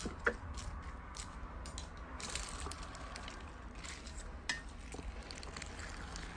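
Slime being squeezed and poked by hand: irregular wet clicks, pops and crackles, the sharpest about a quarter second in.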